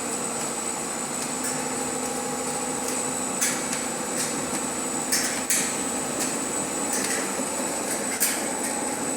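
Corn puff extrusion line running: a steady machinery hum with a constant high whine, and a few sharp knocks scattered through it.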